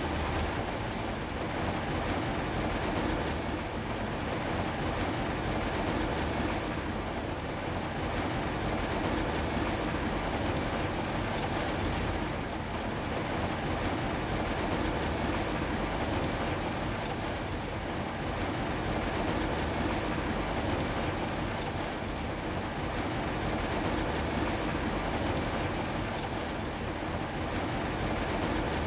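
Steady rain, an even hiss with a deep rumble beneath it.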